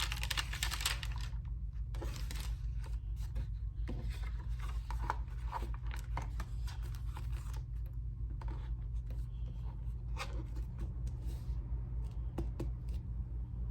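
Thin onion-skin paper pages of a journal being turned and handled, rustling and crinkling in a series of short swishes that thin out in the last few seconds, with a few light taps. A steady low hum runs underneath.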